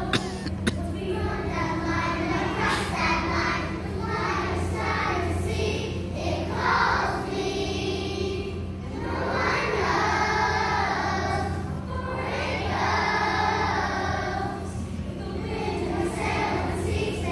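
A group of young children singing together in unison as a choir, in phrases that swell and fade, over a steady low hum. Two brief clicks sound in the first second.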